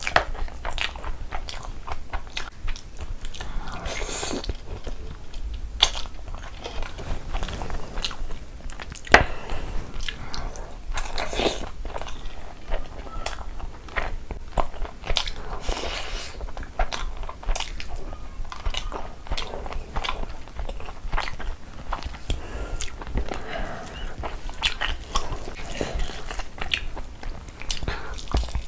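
Close-miked eating sounds of a person chewing and biting into mutton curry and pulao: a dense, irregular run of wet mouth clicks and bites.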